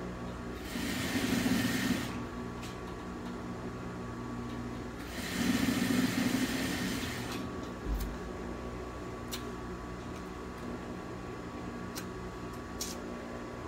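Industrial sewing machine stitching in two short runs, the first about a second long and the second about two seconds, over a steady hum. A soft thump about eight seconds in, then a few light clicks as the fabric is handled.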